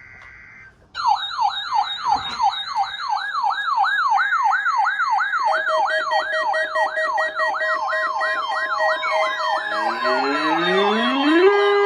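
Weather radio alert alarms going off for the NOAA Weather Radio Required Weekly Test. The EAS header's data screech is faint at the start. From about a second in, a loud warbling siren-like tone sweeps up and down about three times a second. Steady tones join partway through, and several rising glides pile up near the end.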